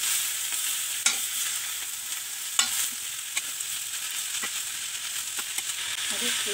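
Shredded cabbage frying in oil in a metal kadai, a steady sizzle, while a spatula stirs and mixes it, scraping and clicking against the pan a few times.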